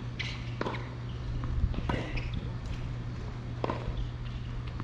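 Tennis rally on a hard court: sharp racket-on-ball hits and ball bounces every second or so, with footsteps and shoe scuffs, over a steady low hum.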